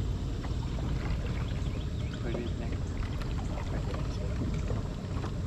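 A small boat's motor running at idle, a steady low rumble, with faint ticks and splashes from the crab line and water.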